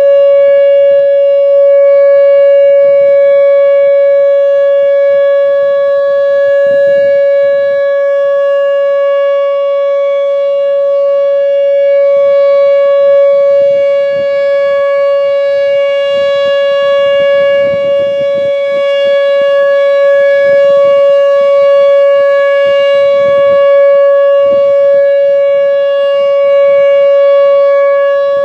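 Whelen WPS-2910 electronic siren sounding the Alert signal during a test: one loud, steady tone that holds the same pitch throughout, rich in overtones.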